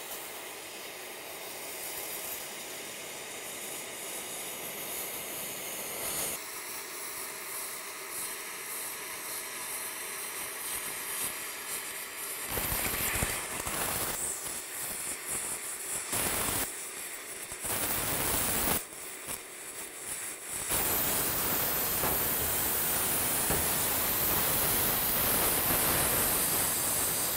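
Multiplaz steam-plasma torch, running on a water-ethanol mixture, hissing as it welds a steel exhaust pipe. The hiss starts and stops in short stretches in the middle, then becomes a louder, steady hiss about twenty seconds in.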